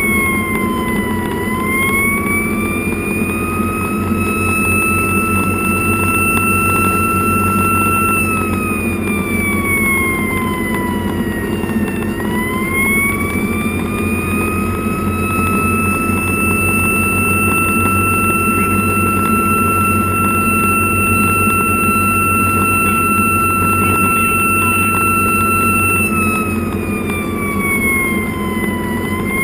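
Fire engine siren wailing slowly: its pitch holds high for several seconds at a time, then sinks and climbs back three times, near the start, about 12 seconds in and near the end. Underneath is the engine's steady hum and road noise inside the cab at highway speed.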